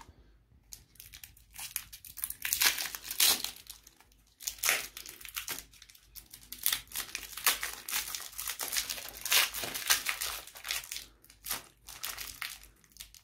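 Clear cellophane wrapper crinkling as it is pulled off a hard-candy lollipop: a dense, irregular run of crackles that starts about a second in.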